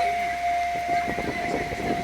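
Japanese railway level-crossing warning bell sounding, a steady ringing tone that carries on without a break, the signal that a train is approaching. Crowd voices chatter underneath.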